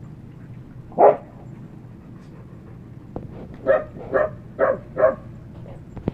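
A dog barking while the dogs play: one bark about a second in, then four quick barks, about two a second, near the end.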